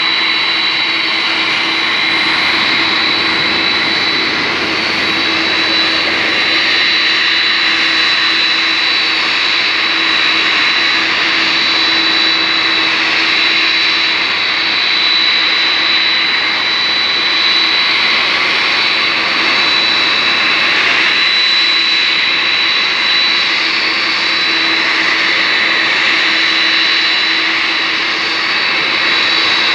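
Jet aircraft turbine running steadily: a loud, constant high whine over a lower steady hum and rushing noise, with no change in pitch.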